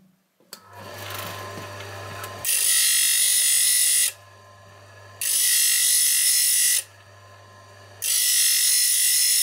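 The electric motor of a saw-blade sharpening grinder starts up about half a second in and runs with a low hum. Three times, a carbide-tipped saw tooth is pressed against the diamond wheel, each time giving a loud, high-pitched grinding of about a second and a half.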